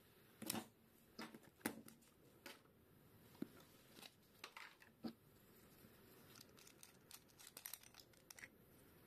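Faint, scattered clicks and rustles of a GoPro HERO12 Black action camera being handled, with a quick run of clicks near the end.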